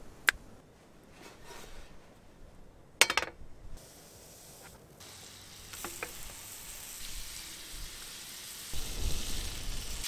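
Bacon-wrapped steak sizzling in a cast-iron skillet over a portable gas stove, the sizzle starting about halfway through and growing louder. Before it, a sharp click near the start and a louder burst of clicks about three seconds in.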